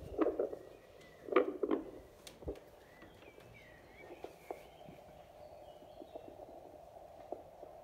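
Handheld vascular Doppler probe being placed on the foot: a few knocks and clicks of handling at first, then the Doppler's speaker giving a faint steady hiss with wavering whooshes as the gelled probe searches for the foot pulse, without a clear pulse rhythm yet.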